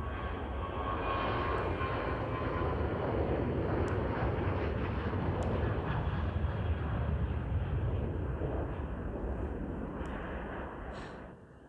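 Boeing 737 jet engines at takeoff thrust during the takeoff roll and climb-out, a loud, steady jet rumble with a thin whine in it. It builds over the first couple of seconds, then eases near the end and cuts off abruptly.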